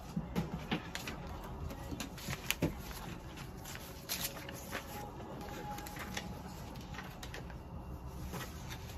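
Sheets of paper rustling as a stack of printed forms is leafed through and lifted, with a few sharper paper snaps, the loudest about two and a half seconds in.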